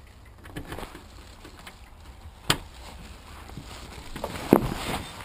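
A few sharp knocks and clicks, the loudest about two and a half and four and a half seconds in, over the rustle of a coat rubbing against the camera.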